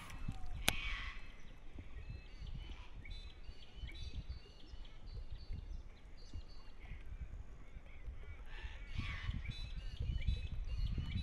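Birds calling in a run of short, quick calls, with an uneven low rumble underneath and one sharp click under a second in.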